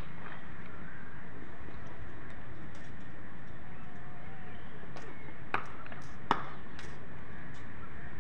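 Two sharp knocks of a cricket bat striking the ball in net batting practice, a little under a second apart past the middle, over steady outdoor background noise.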